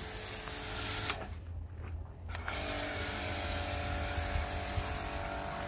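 Pressure washer running and spraying through a snow-foam lance: a steady hiss over a motor hum. The spray cuts out for about a second just after the start, then resumes with a steady motor whine.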